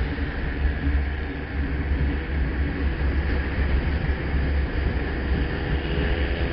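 Motorcycle riding at steady speed on a highway: heavy wind rumble on the microphone over the engine's steady drone and road noise.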